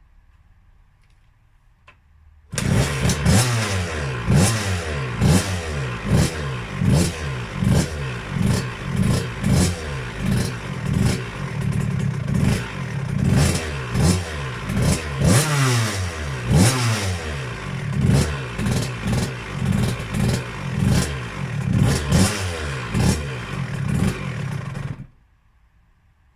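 KTM 65 SX's single-cylinder two-stroke engine revved over and over, the throttle blipped about once a second so the pitch rises and falls with each rev. It comes in suddenly a couple of seconds in and stops abruptly near the end.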